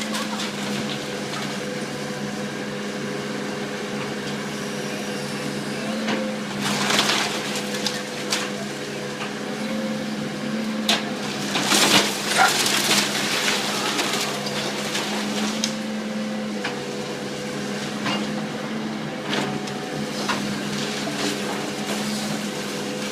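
House demolition: wood cracking, crunching and splintering in bursts, loudest about seven and twelve seconds in, over a steady machine hum.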